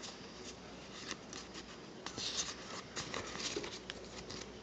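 A stack of trading cards being handled and slid through the fingers: faint sliding and rubbing of card stock with a few small ticks.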